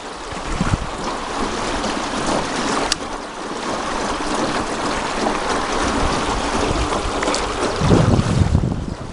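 Water rushing and lapping as a small river boat moves along, with wind on the microphone that gusts into a low rumble near the end.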